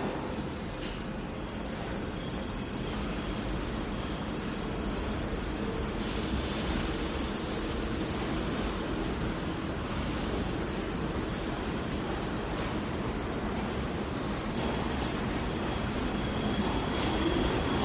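Subway train running along the platform, a steady rumble with high-pitched steel wheel squeal from the rails that comes and goes. The rumble grows slightly louder toward the end.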